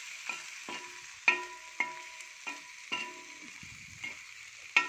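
Metal spoon knocking and scraping against a frying pan as fried cauliflower balls and onions are tossed. There are about seven sharp clacks, roughly two a second, each leaving a brief metallic ring from the pan, over a steady sizzle of hot oil.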